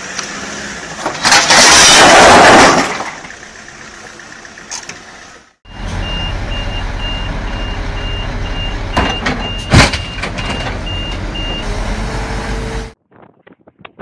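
A loud rush of crashing noise lasting about a second and a half. Then a heavy truck's diesel engine runs low with a reversing alarm beeping evenly, about two to three beeps a second, and a single sharp bang partway through.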